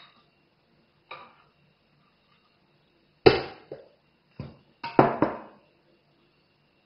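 Objects handled on a table: a glass jar is set down and a small shaker is lifted out of a ceramic bowl, giving a string of knocks and clinks. Two faint taps come first, then louder knocks about three seconds in and a quick cluster of three around five seconds in.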